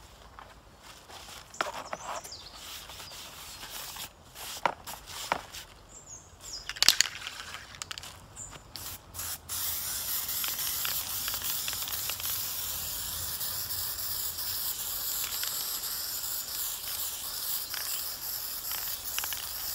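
A few knocks and rustles of cardboard and paper being handled, then about halfway through an aerosol spray-paint can starts spraying: a steady hiss that runs on to the end.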